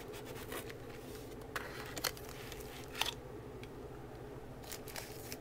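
Cardboard and paper packaging being handled: a few short crackles and rustles, over a low steady background hum.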